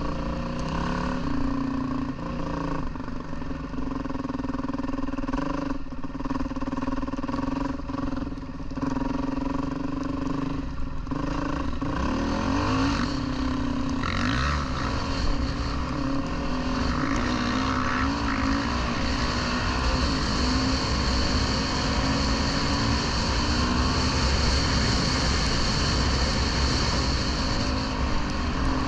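Dirt bike engine running while riding: steady at first, then from about twelve seconds in its pitch rises and falls with the throttle. A rushing noise, like wind, grows over the last third.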